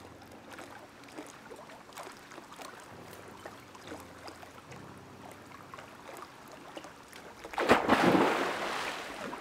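A person jumping into a pool: a sudden loud splash about three-quarters of the way through, then water splashing and falling back, fading over the next second or two.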